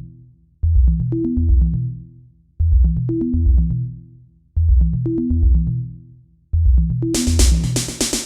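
Electronic music with a deep bass line and drum-machine beat repeating a short two-second phrase; a bright hissing cymbal layer comes in about seven seconds in.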